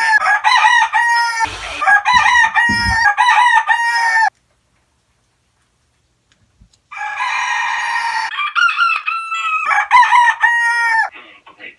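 A rooster calling loudly in a run of short, repeated pitched calls. The calls cut off abruptly about four seconds in and start again near seven seconds.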